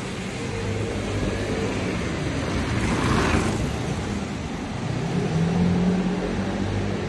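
A motor vehicle's engine running close by, a steady hum that rises a little in pitch and gets louder about five seconds in, with a brief whoosh around three seconds in.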